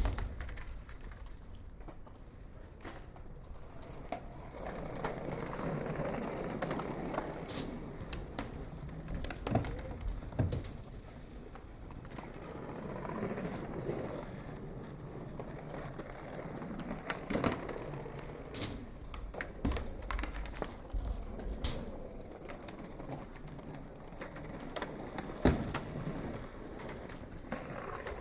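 Skateboard wheels rolling on pavement, the rumble swelling and easing off, with a few sharp clacks of the board, the loudest near the end.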